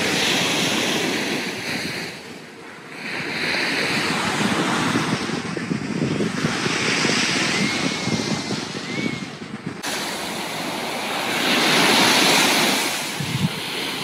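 Sea waves breaking and washing up onto a sandy beach, the surf swelling and easing several times.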